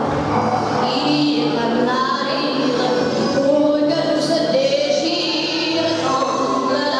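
Music with a woman singing, held, gliding notes over a steady accompaniment.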